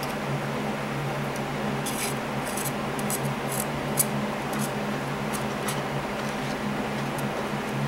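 Stripper-softened paint being rubbed and scraped off a small diecast metal car body in a bowl: scattered scratchy clicks, thickest between about two and four seconds in, with a sharper click about four seconds in. A steady low hum runs underneath.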